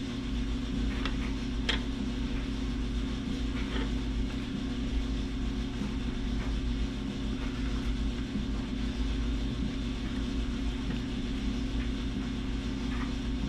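Steady low hum and rumble from unseen background machinery, with a couple of faint light clicks in the first two seconds.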